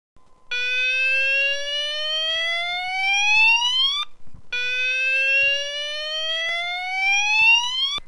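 Banshee 32-tone fire alarm sounder on its slow-sweep tone: two rising whoops, each climbing steadily in pitch for about three and a half seconds before cutting off, with a short break between them.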